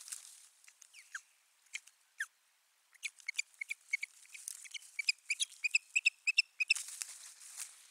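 Osprey calling: a series of short, high whistled chirps, first a few spaced notes, then quickening into a rapid excited run, the kind of calling ospreys give in a territorial clash. A brief rustle comes near the end.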